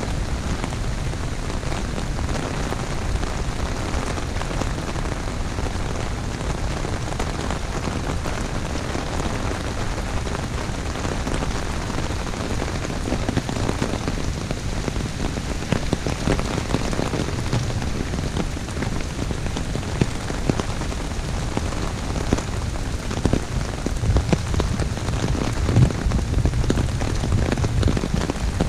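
Heavy, steady rain falling on an umbrella: a dense, even hiss with many single drop hits.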